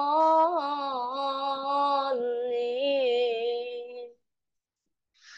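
A child's voice chanting Quranic recitation (tilawah) in two long held, wavering notes that end about four seconds in; a short breathy hiss follows near the end.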